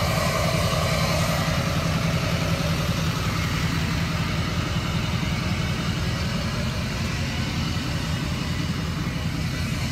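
Pickup truck engine idling steadily.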